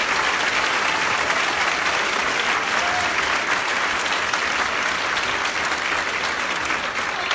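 Audience applauding steadily in a hall at the end of a spoken-word poem performance.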